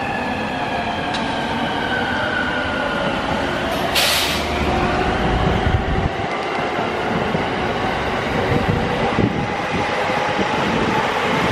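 JR Tokaido Line electric commuter train running on the tracks with a steady rumble. High whines fall in pitch over the first few seconds, a short burst of hiss comes about four seconds in, and a lower whine rises slowly later on.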